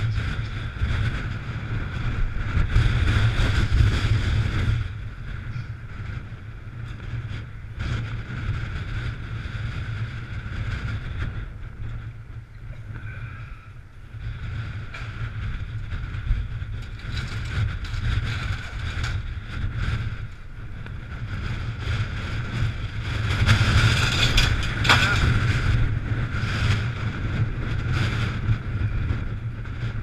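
Gusty wind buffeting a helmet-mounted camera's microphone: a heavy, continuous low rumble that swells in strong gusts at the start and again about three-quarters of the way through, easing in between.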